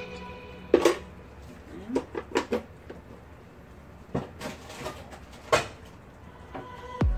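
Metal spoon knocking on a ceramic plate and pan: a handful of separate sharp clacks spread over several seconds, the loudest about a second in.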